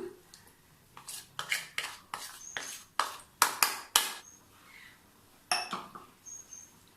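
Spoon scraping and tapping against a metal bowl and pot: a run of sharp, uneven clinks, some with a short ring, as the dissolved bisi bele bath masala paste is emptied into the pot.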